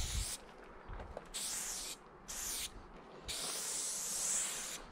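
Aerosol spray paint can spraying in four bursts of hiss, the last the longest at about a second and a half.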